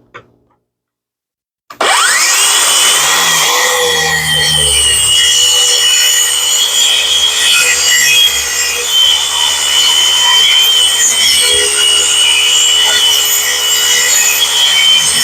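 A power saw starts about two seconds in, its motor whine rising quickly to full speed, then runs steadily as it cuts through a black walnut slab.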